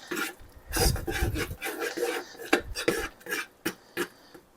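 A spoon stirring thick, cheesy Alfredo sauce in a pan, scraping the pan's bottom in a run of short, irregular strokes.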